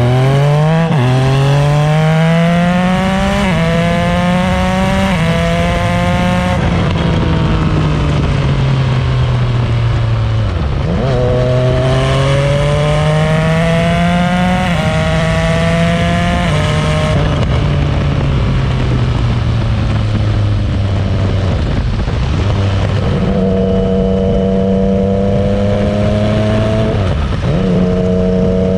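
Yamaha Tracer 900 GT's three-cylinder engine through a full Roadsitalia Projsix titanium exhaust with non-catalysed headers and the dB killer fitted, the bike being ridden. It accelerates up through the gears, its pitch climbing in steps with a brief break at each upshift, then falls as the throttle eases, and it pulls through several more shifts. It then settles to a steady note, with one short dip near the end.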